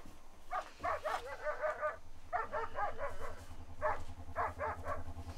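A dog barking and yelping in a run of short, high calls. A low hum starts underneath about a second in.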